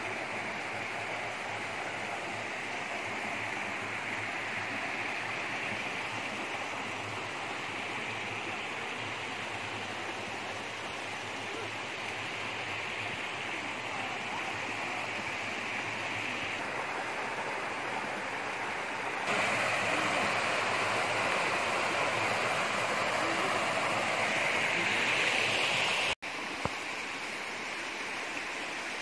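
Small waterfall splashing down over boulders into a rocky pool: a steady rush of water that gets abruptly louder about two-thirds of the way through and cuts out for an instant near the end.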